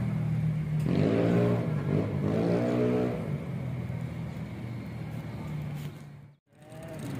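A motor vehicle engine running nearby on the street, its revs rising and falling a couple of times in the first few seconds before settling to a steady hum. The sound cuts out briefly about six seconds in.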